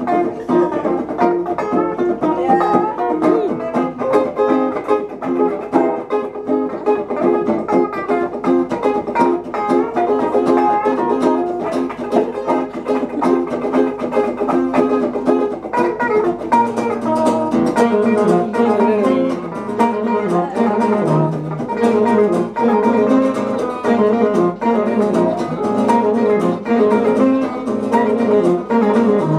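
Music on plucked string instruments, guitar-like, with busy rhythmic picking. A lower bass part joins about sixteen seconds in.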